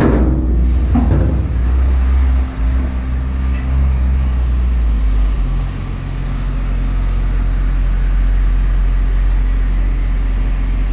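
Vehicle running: a steady, low engine and road drone whose note shifts about five and a half seconds in, opening with a sharp knock.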